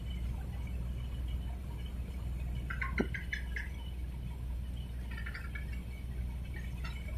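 Harbour ambience: a low steady rumble with water lapping, and bursts of short high chirps about three seconds in and again about five seconds in, with one sharp click at the first burst.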